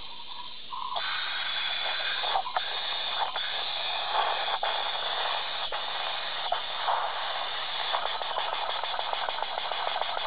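Small four-stroke engine converted to run on steam, starting up on about 42 psi of steam about a second in: a steady steam hiss with a rapid clattering beat that turns fast and even near the end. Heard played back through a phone's speaker.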